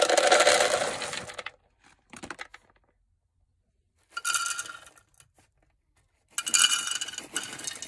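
Dry pet kibble pouring from paper food packets into plastic pet bowls, a rattling patter in three bursts: a long one at the start, a short one about four seconds in, and another from about six and a half seconds.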